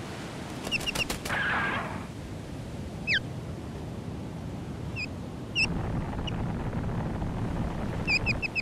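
An osprey calling: short, high chirps in quick runs of three to five, with a single falling whistle about three seconds in, over a soft rushing background.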